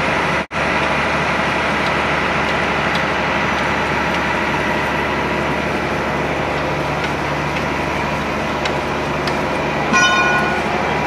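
Heavy truck engine idling steadily, with a short horn-like toot about ten seconds in.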